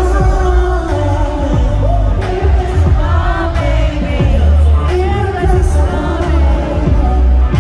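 Male K-pop vocalists singing live into microphones over a loud amplified backing track with heavy bass, heard through the arena sound system from the audience.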